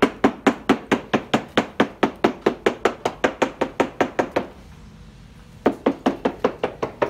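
A small hammer tapping rapidly along a yacht's fibreglass hull, about four or five light taps a second: a surveyor sounding the laminate for delamination and locating the bulkheads. The tapping stops about four and a half seconds in and starts again after a pause of about a second.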